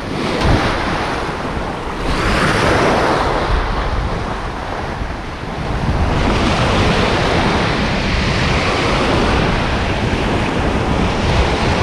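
Small waves breaking and washing up a sandy shore around the wader's feet, surging about two seconds in and again from about six seconds on, with wind rumbling on the microphone.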